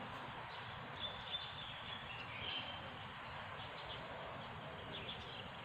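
Quiet outdoor background noise with faint high chirps, like distant birds, around the first half, and two soft taps about a second in.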